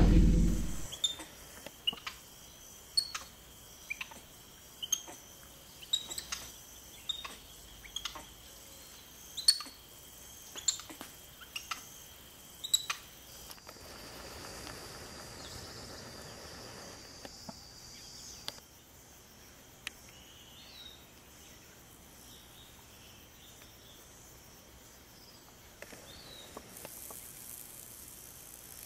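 Outdoor wildlife ambience: short, sharp, high chirps, irregular and about one or two a second, for the first dozen seconds. Then a steady high hiss for about five seconds, then only faint background.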